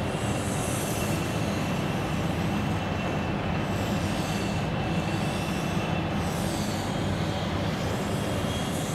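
Steady room hum and hiss with a faint steady high tone.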